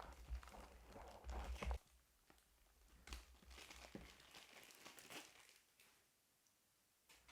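Packaging crinkling and rustling as it is handled during unboxing, in two spells a second apart, then quiet except for one short click near the end.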